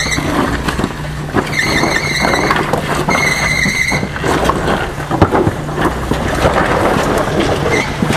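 A jeep driving over rough ground, its engine humming under dense knocking and rumbling noise. Two high squeals of about a second each come around two and three seconds in.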